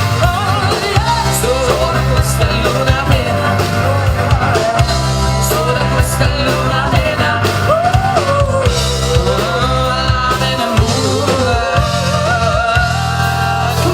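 Rock band playing: drums and bass under a lead melody that bends and wavers in pitch.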